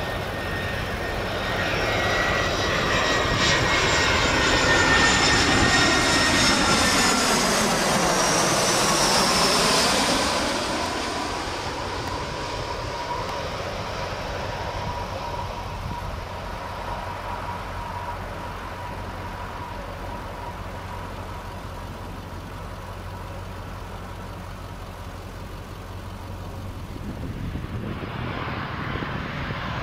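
Airliner passing low overhead: engine whine falling in pitch as it goes by about eight seconds in, then fading to a steady distant hum. Engine sound swells again near the end.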